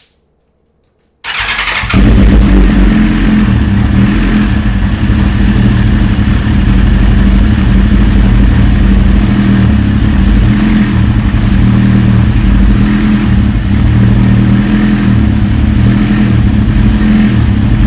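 2007 Suzuki GSX-R1000's inline-four engine cranked on the starter and catching about a second in, then idling steadily. It is run just after an oil change to circulate the fresh oil.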